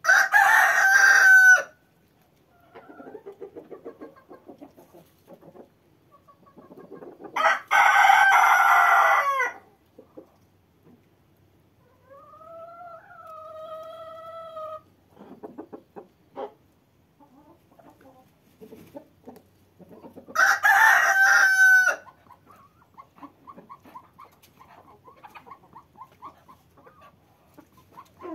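A rooster crowing three times: once at the start, again about eight seconds in, and again about twenty-one seconds in. Quieter clucking comes in between the crows.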